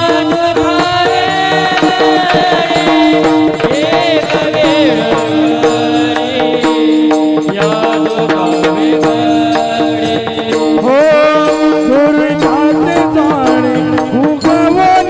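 Devotional kirtan music: steady held notes and tabla under a sliding, wavering melody line, an instrumental or wordless interlude between sung verses of the refrain.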